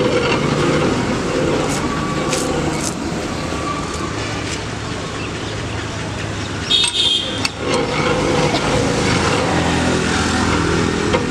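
Street sugarcane juice crusher running: its flywheel-driven gears and rollers turn with a steady hum as cane stalks are fed through. There is a brief higher squeal or scrape about seven seconds in.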